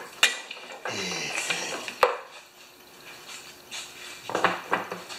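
Metal clinking and knocking as tools and parts are handled on an old Tecumseh mower engine during tank removal: two sharp clacks, about a quarter second and two seconds in, with quieter rattling and taps between and near the end.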